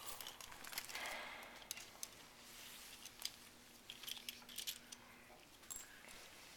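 Faint metallic clicks and clinks of tools and external fixator hardware (pins, nuts, rod) being handled and dismantled.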